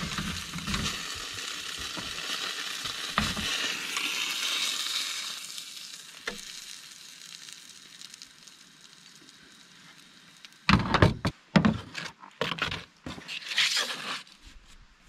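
Food sizzling in a hot frying pan, the sizzle fading away over the first six or seven seconds. Near the end comes a cluster of loud knocks and bumps.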